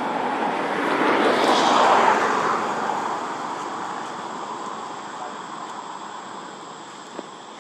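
A passing vehicle: a rush of engine and road noise that swells to its loudest about two seconds in, then slowly fades away. A short sharp click right at the end.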